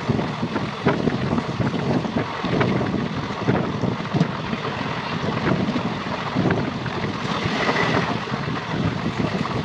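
Wind rushing over the microphone along with the running noise of a moving train, with many small knocks and rattles. A brief higher-pitched squeal rises out of it about eight seconds in.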